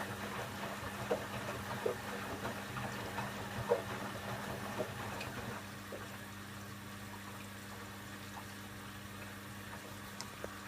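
Candy Aquamatic 1000T compact washing machine with water splashing in the drum over a steady hum. The splashing stops about six seconds in, leaving the hum.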